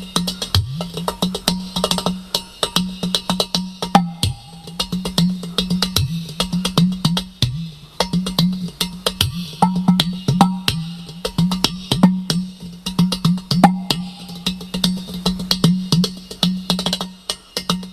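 Udu clay pot drum played in a fast, dense rhythm of sharp taps on the pot's body over a deep, booming tone that repeatedly swoops downward in pitch.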